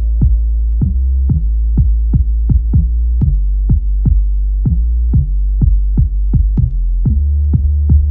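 Background electronic music: a steady drum-machine beat of about three hits a second over held bass notes and chords that change twice.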